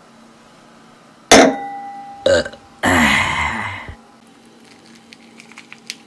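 A person burping loudly three times in quick succession after drinking beer; the third burp is the longest, about a second, falling in pitch. Faint clicks follow near the end.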